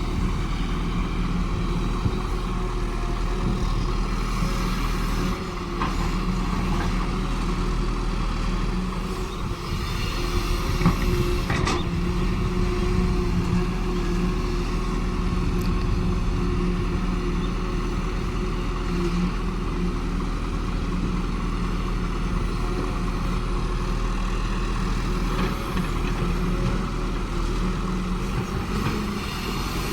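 Caterpillar excavator's diesel engine running steadily under load while it works, with a few short clanks, the loudest about eleven seconds in.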